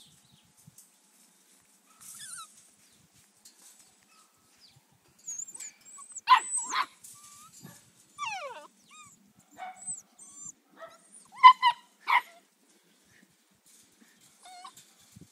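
Labradoodle puppies yipping, whining and giving short high-pitched barks as they play-fight, in scattered bursts with quiet gaps between; the loudest yips come a little before halfway and again about three-quarters through.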